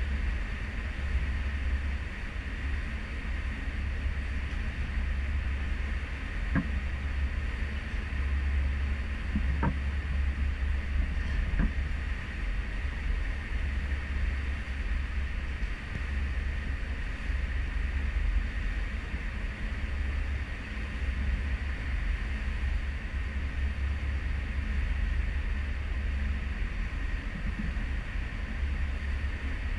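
Cruise ship underway at sea: a steady low rumble from the ship with a constant rushing hiss of wake water and wind. Three faint clicks come between about six and twelve seconds in.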